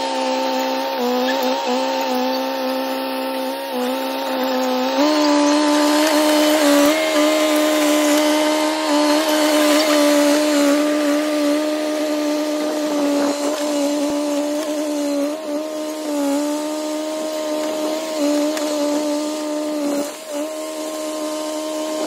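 John Deere 450B crawler bulldozer's diesel engine running steadily under load while the dozer shoves brush and stumps, its pitch stepping up slightly about five seconds in and then holding.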